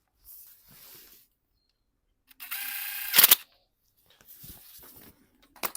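Engine-bay hoses and plastic fittings being handled and pushed into place, with a scraping rustle and a sharp snap a little after three seconds, and another click near the end.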